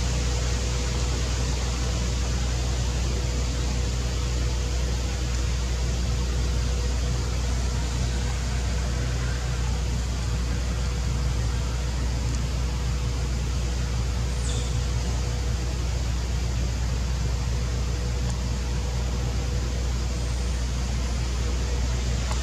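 Steady low rumble with an even hiss and a faint constant hum, the same throughout, of the kind made by distant road traffic or a running engine.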